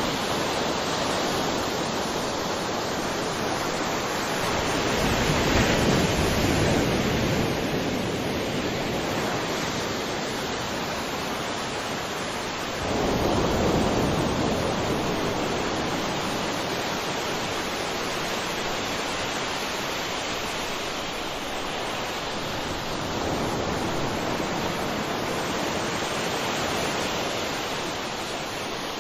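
Ocean surf: a steady wash of waves on a shore, swelling as waves break, most strongly about five seconds in and again about thirteen seconds in.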